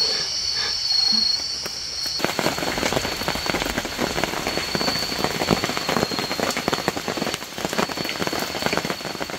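Rain pattering on a camp tarp, a dense, irregular spray of drop hits that starts suddenly about two seconds in. Before that there is a steady high-pitched drone.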